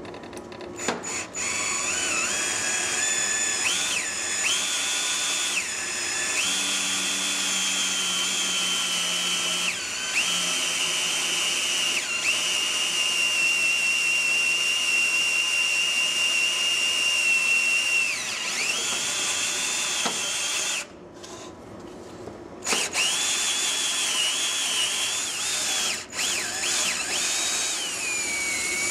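Cordless drill running under load as it machines a 5R55-series transmission servo bore, its motor whining at a speed that shifts up and down. About two-thirds through it winds down and stops for a moment, then starts again.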